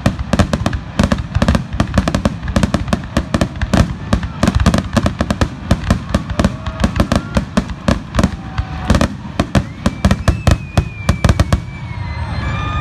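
Aerial firework shells launching and bursting in a rapid barrage, several sharp bangs a second. The bangs stop about a second before the end.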